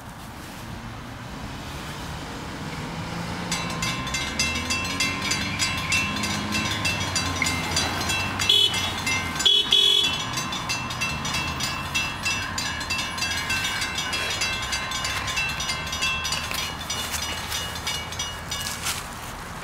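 Grade-crossing warning bells ringing with a fast, even ding, starting a few seconds in and stopping near the end. Over them an approaching Norfolk Southern diesel locomotive sounds its horn for the crossing, with two short, loud blasts in the middle.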